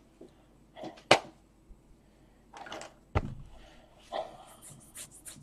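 Sporadic handling noises of plastic CD cases: a sharp click about a second in and a knock a little after three seconds, with short rustles and breathy sniffs between and brief light rattling near the end.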